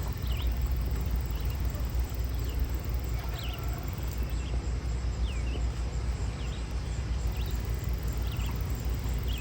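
Small birds chirping, short high calls repeating about once a second, over a steady low rumble outdoors.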